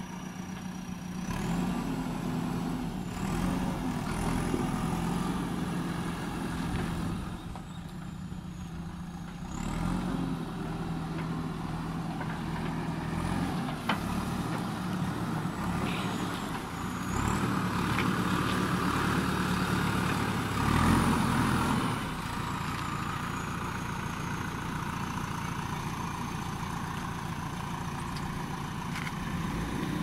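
JCB 3DX backhoe loader's diesel engine running, revving up and dropping back several times as the machine works, with a high whine that rises and falls with the revs. It is loudest a little past two-thirds of the way through.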